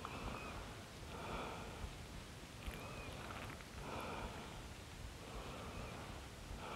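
Faint, regular breathing, a soft breath about every second and a half, with a few light clicks of a utensil against the griddle pan.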